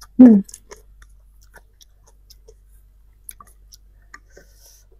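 A short vocal sound with a falling pitch right at the start, then faint, scattered mouth clicks and chewing from eating spicy cup noodles.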